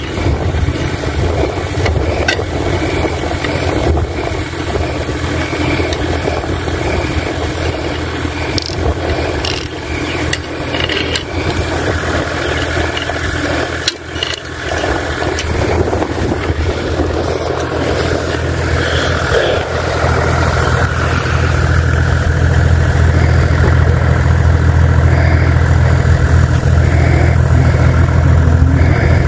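An engine running steadily with a low hum, getting louder about two-thirds of the way in, with scattered clicks and knocks over it.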